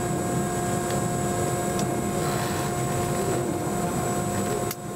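Boeing 717's rear-mounted Rolls-Royce BR715 turbofan running at idle, heard from inside the cabin: a steady low rumble with several held whining tones. The level dips briefly near the end.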